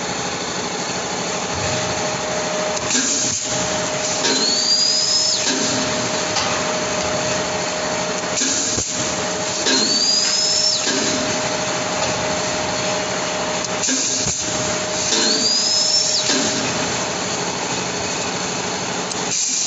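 Air-powered tyre-doubling machine working through its cycles over steady machine noise. Each cycle opens with a sudden surge of noise and is followed by a short rising whine, repeating about every five and a half seconds.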